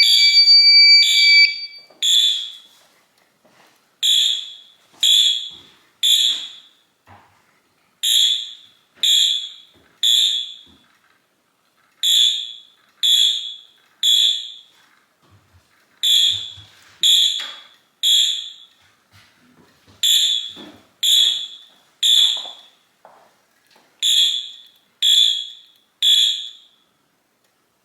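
Fire alarm horns sounding the temporal-three evacuation pattern after a pull station is pulled: three short, high blasts about a second apart, then a pause, repeating. The horns are set to continuous but are pulsed into code three by the panel. It opens with a brief steady high electronic tone.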